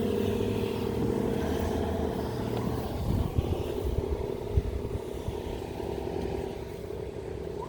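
ACA Allertor 125 rotating outdoor warning siren sounding a steady tone that slowly fades, with a few low thumps in the middle.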